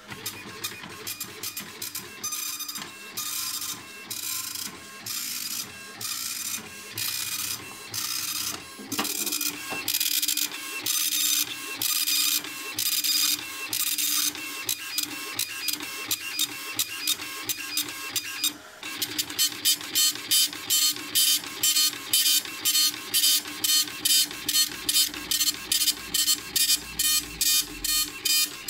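Panasonic KX-P1694 dot-matrix printer printing a page: the print head rasps across the paper in repeated passes, with short gaps between them. After a brief pause about two-thirds through, the passes become shorter and quicker, more than one a second.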